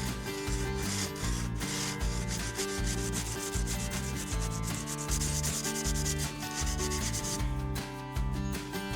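Steel chip breaker of a Stanley Bailey No. 4 hand plane being lapped by hand on abrasive paper: a steady hiss of rubbing strokes that stops about a second and a half before the end, over background music.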